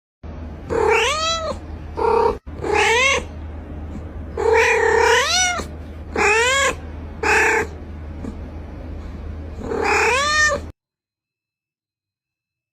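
A cat meowing repeatedly, seven calls of varying length, most rising then falling in pitch, over a steady low hum. The sound cuts off abruptly near the end.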